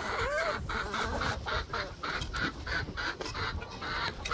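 Chickens clucking, a steady run of short clucks several a second.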